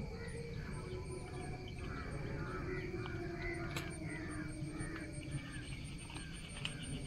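Birds calling again and again in the background over a steady low rumble, with a sharp click about halfway through as pliers work a jerkbait's hook out of the fish's mouth.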